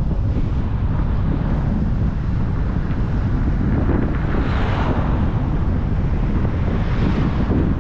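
Wind buffeting the microphone: a steady low rumble, with gusts swelling about halfway through and again near the end.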